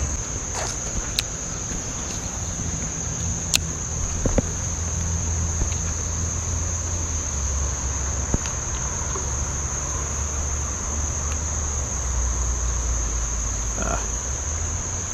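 Insects calling in one steady, unbroken high-pitched drone over a low rumble, with a few sharp clicks, the loudest about three and a half seconds in.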